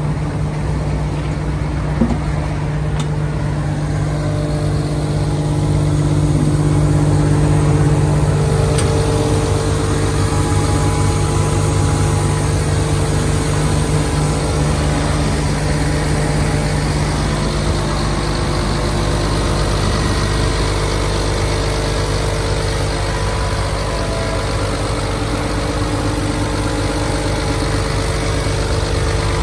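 Caterpillar 320D L hydraulic excavator's diesel engine running steadily, a little louder for a few seconds about a quarter of the way in.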